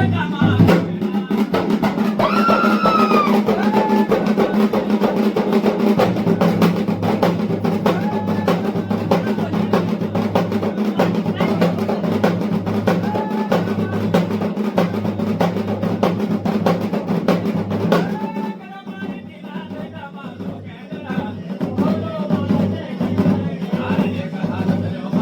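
Fast, continuous drumming, as of the dhol and damau played at a Garhwali mandan, with voices over it. The drumming eases for a couple of seconds about three-quarters of the way through, then picks up again.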